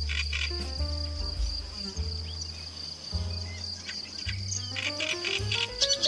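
Reed warbler singing in short bursts of rapid, grating notes at the start, about four and a half seconds in and near the end, over a steady high insect trill. Soft background music with slow bass notes runs underneath.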